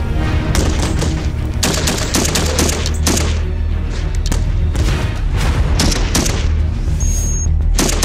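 Several bursts of rapid automatic gunfire over a low droning music score, with a short high electronic beeping near the end.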